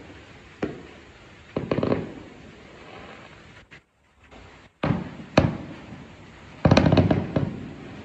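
Aerial firework shells bursting, each bang trailing off in an echo: one about half a second in, a quick cluster near two seconds, two sharper bangs around five seconds, and a rapid volley of bangs around seven seconds.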